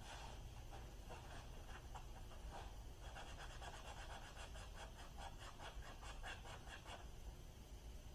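Faint rapid scratching in quick back-and-forth strokes, starting about three seconds in and lasting about four seconds, over a low steady hum.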